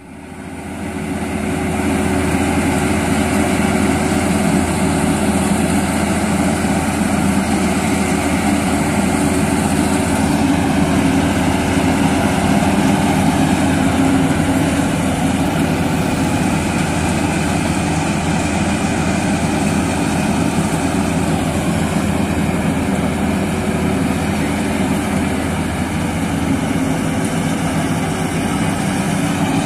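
Fieldking combine harvester running steadily as it cuts standing rice, a loud, even engine drone. The sound fades in over the first second or two.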